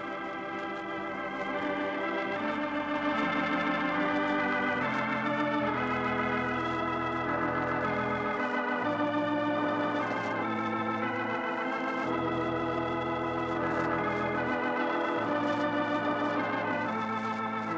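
Organ playing the program's closing music: slow held chords with a wavering vibrato, changing every second or two, the bass notes dropping out briefly a few times.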